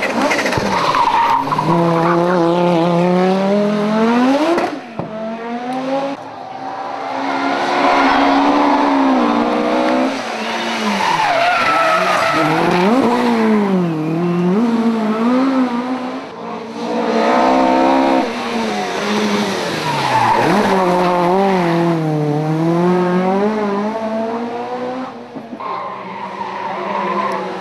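Rally cars at full power on a stage, engines revving hard and falling away again and again through gear changes and lifts as they come past.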